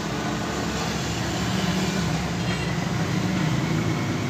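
Steady low background rumble with a faint hiss, swelling slightly in the middle and easing toward the end.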